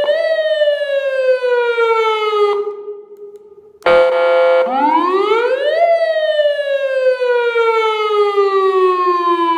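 Electronic alarm siren speaker sounding a wailing siren tone: a slow downward sweep fades out about two and a half seconds in. After a second's lull, a short steady blast, then a new wail rises quickly and falls slowly.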